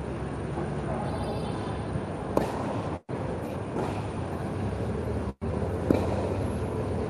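Tennis racket striking a ball twice, two sharp pops about three and a half seconds apart, over a steady background rumble.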